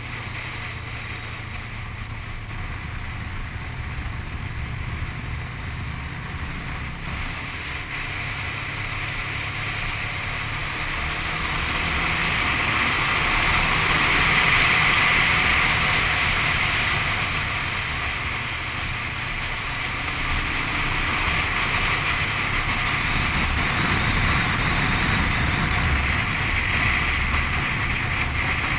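Motorcycle riding at speed: a steady low engine drone under wind rush over the mounted camera, the rush swelling louder about halfway through and easing again.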